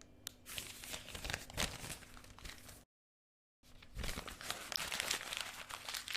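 Paper pages flipped, a quick run of rustling flicks. After a brief silence about three seconds in, a sheet of paper is crumpled, with dense crinkling and crackling.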